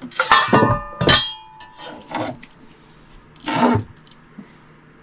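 Metal plumbing fittings and tools clinking and clanging as they are handled under a sink: several sharp knocks in the first few seconds, the first ones ringing briefly.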